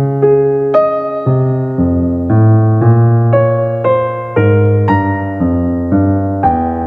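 Electric-piano or keyboard music with no speech: a melody played note by note over sustained bass notes, a new note about every half second.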